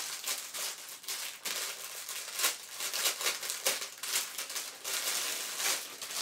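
Thin clear plastic bag crinkling as it is handled and pulled open to take out a cloth nappy: a dense, irregular run of sharp crackles.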